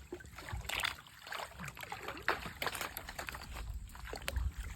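Water splashing and sloshing in short, irregular strokes over a steady trickle, with low rumbling near the end.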